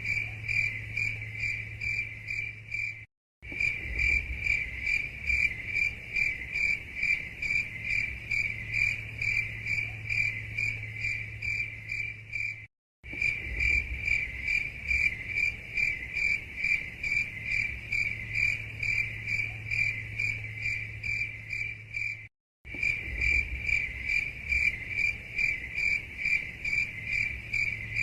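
Cricket chirping in a steady, even rhythm, about three chirps a second, over a faint low hum. The sound cuts out completely for a moment three times, about every ten seconds.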